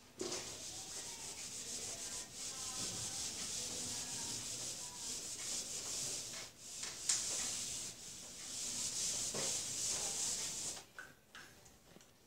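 Whiteboard eraser scrubbing back and forth across a whiteboard, wiping off marker writing, with a couple of short breaks; the rubbing stops about eleven seconds in.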